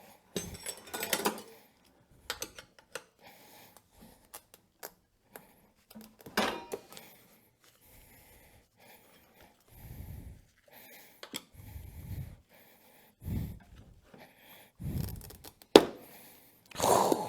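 Small steel tire irons clicking and scraping against a Warp9 motorcycle rim as a stiff CST Legion tire's bead is levered over the rim edge. Scattered sharp metallic clicks and knocks, with several dull thumps in the second half.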